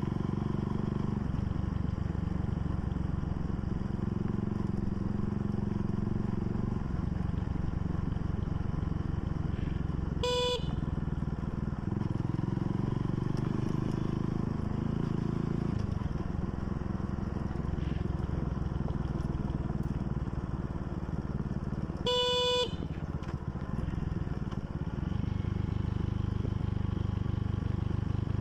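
Motorcycle engine running on the move, its pitch shifting every few seconds with throttle and gear changes. Two short horn beeps, about ten seconds in and again about twenty-two seconds in; the second is the loudest sound.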